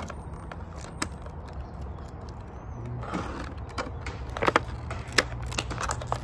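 Clear plastic action-figure packaging being handled: a small plastic bag rustling and the blister tray giving a few sharp clicks. A steady low rumble runs underneath.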